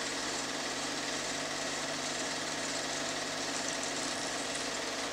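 Film projector running steadily, its motor and film mechanism making an even mechanical whirr over a constant low hum.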